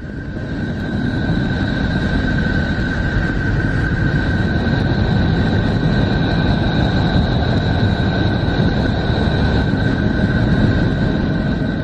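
Voyager 2 recording of Neptune's radio emissions converted into sound: a steady, dense rumbling rush with two constant high tones held over it, swelling in over the first second.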